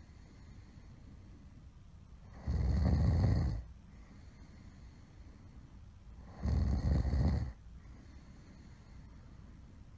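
Loud snoring: two rasping snores about four seconds apart, each lasting about a second, with quieter breathing between.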